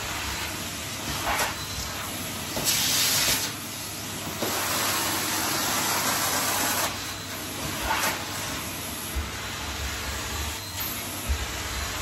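Henry cylinder vacuum cleaner running, its suction a steady rushing hiss, with a brighter surge of air about three seconds in and a few short low knocks as the tool is worked over the floor.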